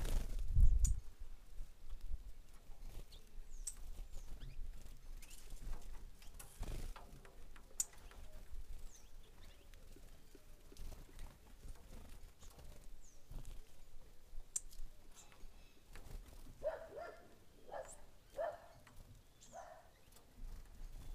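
Small birds at a grain feeding platform: a brief flurry of wingbeats at the start as a bird flies in, then scattered light taps and ticks, and a few short bird calls near the end.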